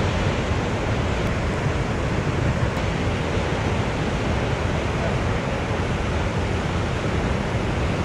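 Steady roar of heavy ocean surf, with wind rumbling on the microphone.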